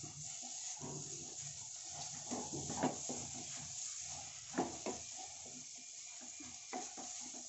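Stir-fried vegetable noodles sizzling steadily in a kadai over a high gas flame, with a wooden spatula scraping and knocking against the pan now and then as they are tossed. The sizzle means the noodles are still cooking: they are cooked until this sizzling sound dies away.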